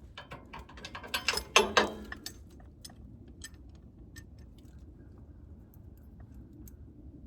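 Small metal parts clinking and rattling as they are handled, a quick flurry of clinks in the first two seconds, then scattered light ticks.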